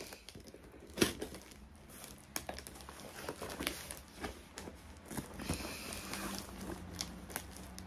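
Plastic wrap and packing tape crinkling as a cardboard parcel is cut open with a small blade, with scattered clicks and taps and a sharp click about a second in.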